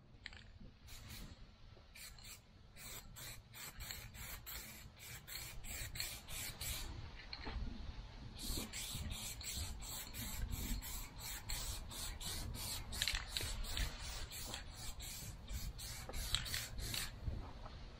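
Aerosol guide coat hissing out of a spray can in many quick short bursts, a few a second, onto a primed fiberglass boat hull, with a pause of about a second and a half midway.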